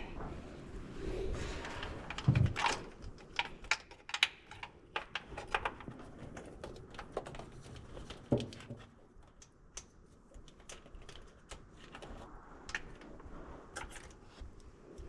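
Irregular light clicks and taps of small hard parts and tools being handled, with a louder knock about two and a half seconds in and another about eight seconds in.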